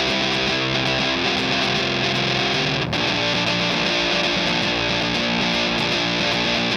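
Electric guitar played through a Hydra Fuzz pedal, a three-knob Tone Bender–style fuzz: sustained, heavily fuzzed chords with a fresh attack about three seconds in.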